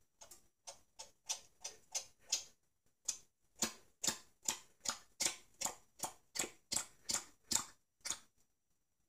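Open can of condensed cream of mushroom soup shaken upside down to work the soup out, a sharp click with each shake, about three a second. There is a short pause about two and a half seconds in, and the clicking stops shortly before the end.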